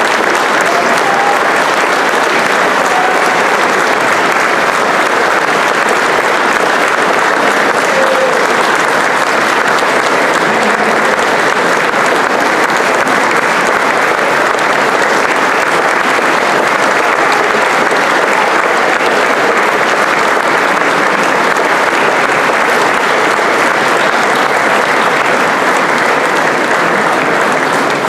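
Crowd applauding: dense, steady clapping at a constant high level.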